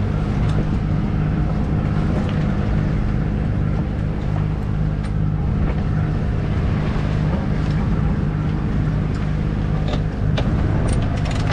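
Sailboat's inboard diesel engine running steadily at about half revs while motor-sailing, with a few faint clicks near the end.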